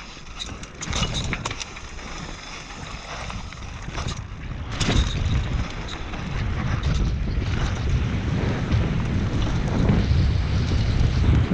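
Wind buffeting the microphone over a mountain bike's tyres rolling on grass and dirt, with a few sharp knocks and rattles from the bike over bumps. The rumble gets louder about five seconds in.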